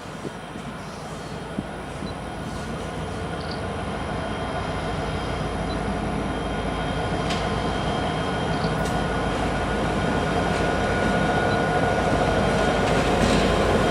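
Diesel freight train approaching, its locomotive engines and rumble growing steadily louder.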